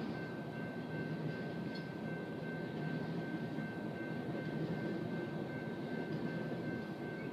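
Freight train of loaded covered hopper cars rolling steadily past a grade crossing: a continuous rumble of steel wheels on the rails, with a thin steady high tone over it.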